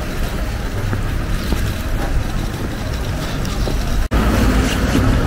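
Steady low rumble of outdoor street ambience with wind on the microphone. It drops out for an instant about four seconds in, then carries on a little louder.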